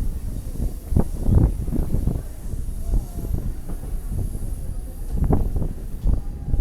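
Passenger train cars rolling along the track: a steady low rumble with irregular clunks from the wheels, the loudest about a second in, again half a second later, and a little past five seconds.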